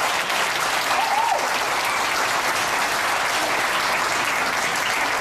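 Wedding guests applauding, a steady mass of hand clapping, with a short whistle about a second in.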